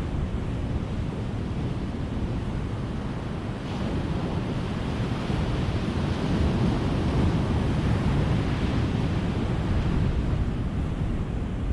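Ocean surf, waves breaking and washing up the shore in a steady hiss and rumble, swelling louder from about a third of the way in.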